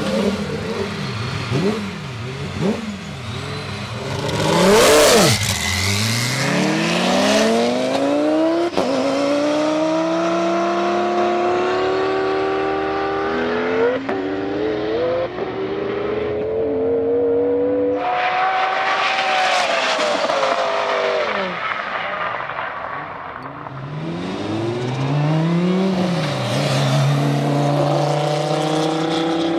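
Twin-turbo Lamborghini V10 engines running hard on drag passes, the pitch climbing steeply in each gear and dropping back at each shift. There is a loud peak about five seconds in and a sudden change about eighteen seconds in.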